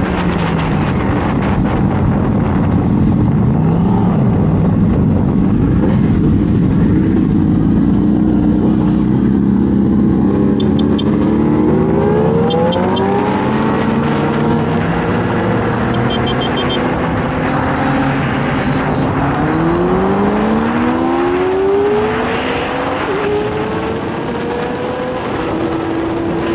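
Yamaha YZF-R6 sport bike's inline-four engine running at speed over wind rush, its revs climbing in long rising sweeps about halfway through and again a little before the end.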